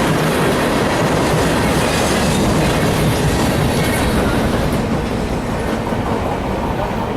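Norfolk Southern freight train cars rolling past, wheels clattering over the rail joints in a steady roar that eases off slightly in the second half.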